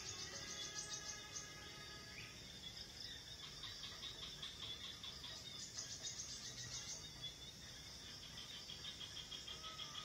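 High, rapid chirping trills coming in bouts of one to two seconds, one voice a little higher than the other, over a steady faint background hum.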